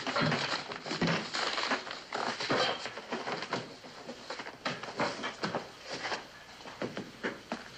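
Footsteps and scattered knocks as people walk across a store floor, growing fainter toward the end.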